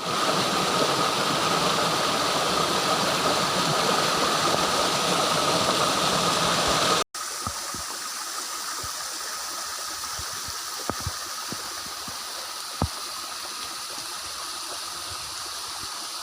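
Steady rushing water of a small jungle waterfall. About halfway through it cuts abruptly to a quieter, steady water rush with a few faint clicks.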